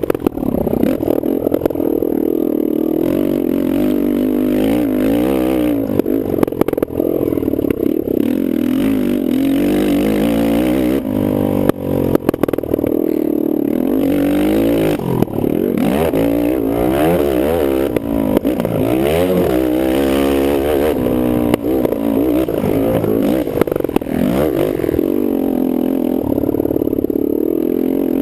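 Kawasaki KFX450R quad's single-cylinder four-stroke engine being ridden hard, its revs rising and falling again and again through the gears, with occasional sharp knocks and clatter.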